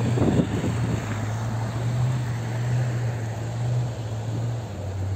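Truck engine running with a steady low drone, rising a little in pitch around the middle and settling back near the end, over the hiss of traffic on a slushy road.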